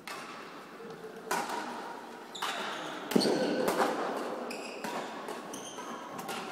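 Badminton doubles rally: rackets striking the shuttlecock about once a second, with short squeaks of players' shoes on the court floor in between.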